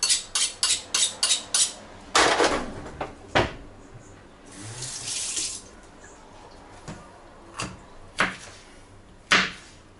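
A dull kitchen knife is sharpened with quick scraping strokes, about three a second, stopping after a second and a half. A sink tap then runs briefly, and a few knife cuts knock on a cutting board near the end.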